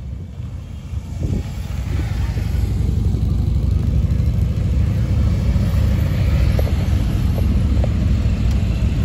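Engines of a line of motorcycles and three-wheeled trikes riding slowly past, a low rumble that grows louder over the first few seconds and then holds steady.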